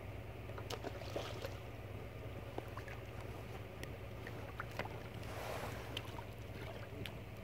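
A hooked fish splashing faintly at the river surface as it is reeled in, with scattered small ticks and a brief louder swirl of water about five seconds in, over a steady low hum.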